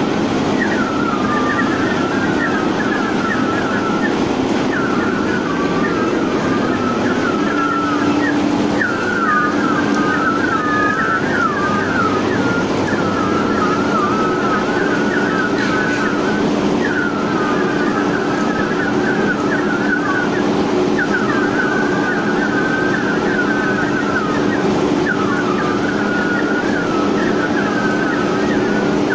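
Two-colour plastic printing machine running steadily on a trial run, a continuous mechanical hum. Over it, a wavering high-pitched warble comes back in phrases of about two seconds.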